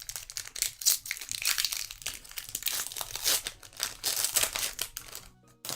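Pokémon card booster pack wrapper crinkling and tearing as it is opened by hand, the rustling stopping shortly before the end.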